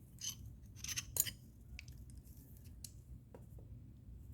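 A few light metallic clicks and ticks from small knife parts and a tool being handled during disassembly of a folding knife, the sharpest about a second in.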